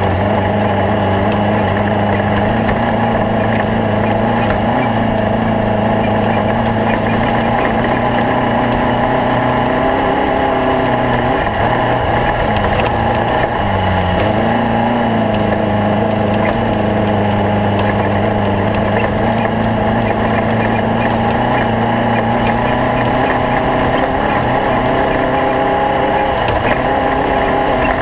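Air-cooled Volkswagen flat-four engine of a stock-class race Beetle running loud and steady under load. The engine note sags twice around the middle, as if easing off briefly, then comes back up.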